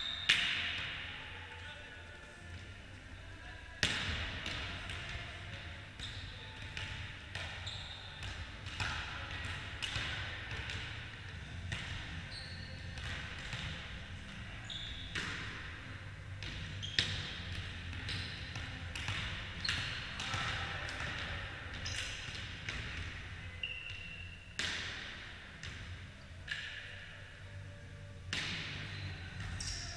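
Volleyball being struck and bouncing on a wooden sports-hall floor in play: a sharp hit every few seconds, each echoing through the large hall.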